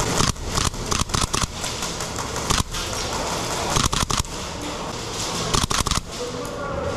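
Airsoft guns firing in an indoor arena: sharp cracks in short irregular clusters over a steady background hiss.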